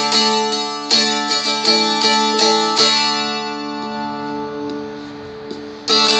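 Seagull Merlin strumstick strummed: a run of five chords over about three seconds, then one chord left ringing and slowly fading, with strumming starting again near the end.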